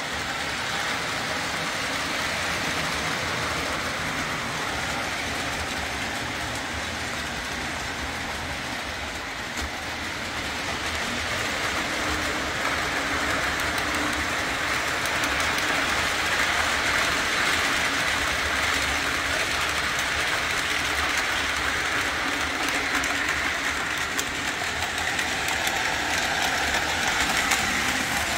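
Lionel O-27 Alco diesel model train running on tubular three-rail track: a steady motor whir and wheel rumble with a faint rail clatter, growing louder about halfway through.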